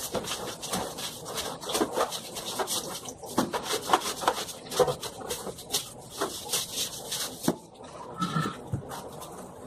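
Stiff broom bristles scrubbing a wet, foamy tile floor soaked with bleach and detergent, in rapid repeated strokes that stop about seven and a half seconds in.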